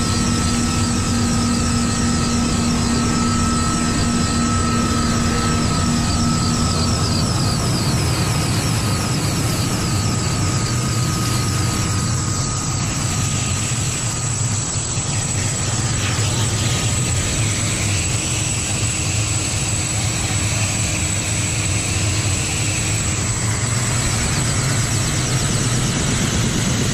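Kamov Ka-226 helicopter's turbine engines and coaxial rotors running steadily on the ground, a constant rotor rumble with a high turbine whine over it.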